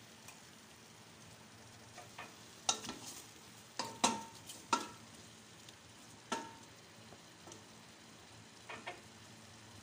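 Chicken pieces being stirred as they brown in a stainless steel pot: the stirring utensil knocks and scrapes against the pot about half a dozen times, some knocks ringing briefly, over a faint sizzle of frying.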